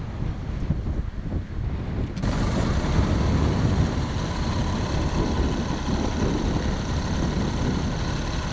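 The Kayoola coach bus's diesel engine running with a steady low rumble. About two seconds in, the sound changes suddenly: a brighter hum with steady high tones joins the rumble.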